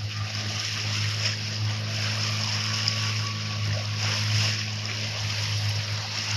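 Small boat's engine running steadily with a low hum, with water rushing and splashing along the hull as the boat moves.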